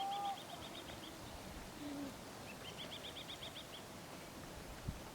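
A small songbird singing a fast trill of high chirps, about nine notes a second. It sings two bursts of about a second each, the second starting about two and a half seconds in.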